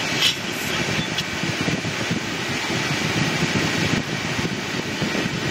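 Steady road and engine noise inside a moving car's cabin, an even rumbling hiss with no change in pace.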